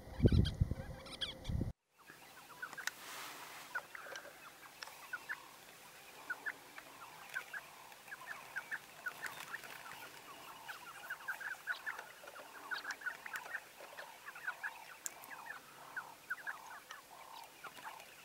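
Loud low rumbling and thumps for the first second and a half, cut off suddenly. Then a group of Burchell's sandgrouse calling: many short, soft calls overlapping, several each second.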